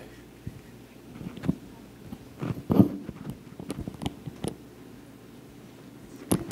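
Irregular knocks and bumps picked up by the lecture microphone, typical of a microphone being handled. The loudest cluster comes about two and a half seconds in, and a sharp click falls near the end.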